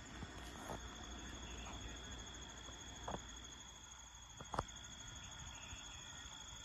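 Faint, steady high-pitched chirring of crickets or katydids, with two soft clicks about three and four and a half seconds in.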